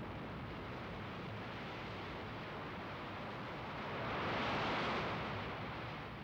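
Steady rushing wind and sea noise, swelling louder for about a second and a half around four seconds in, then settling back.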